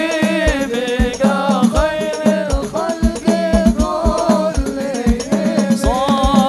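Men singing an Islamic sholawat over a steady, fast beat of hadrah frame drums (rebana), with the voices amplified through microphones.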